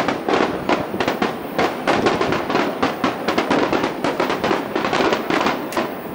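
Aerial firework shells bursting in a rapid barrage: a dense run of overlapping bangs, several a second, with no let-up.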